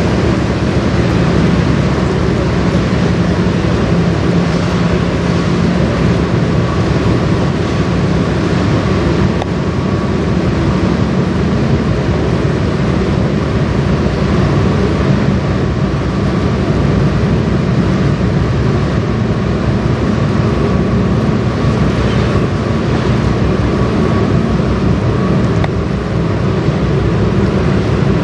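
Pusher tug's diesel engines running steadily in a constant drone, mixed with the wash of water churned up along its hull as it pushes a barge past.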